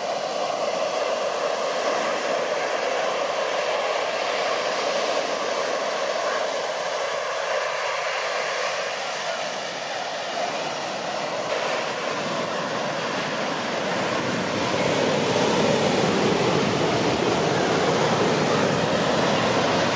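Red Bull MBB Bo 105 helicopter's turbine and rotor noise heard from a distance as a steady rushing wash. It grows louder about three quarters of the way through.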